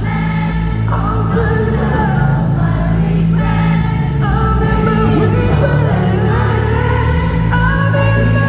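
Live pop concert music: a full band playing with sung vocals over a steady, heavy low end.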